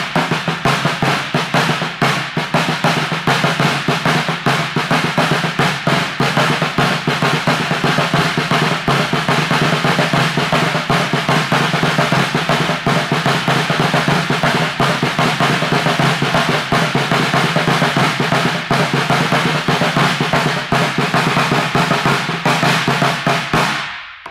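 Caixa snare drum played with two wooden sticks: a fast, unbroken run of strokes and rolls with stronger accented hits, stopping abruptly near the end.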